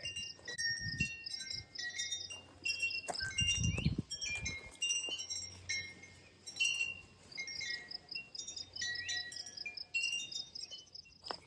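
Wind chimes ringing, struck at irregular moments, with a steady high chirping of crickets underneath. There is a brief low rumble about three to four seconds in.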